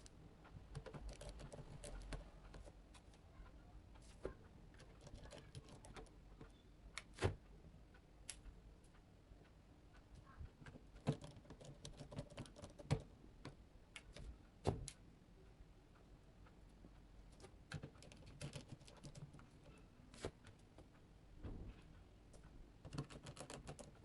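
Faint, irregular small clicks and taps of a precision screwdriver driving screws into a smartphone's back case and of the parts being handled, with a few sharper clicks.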